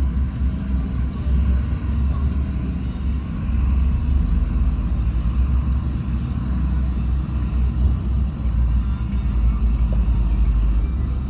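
Heavy construction machinery running with a steady low diesel rumble.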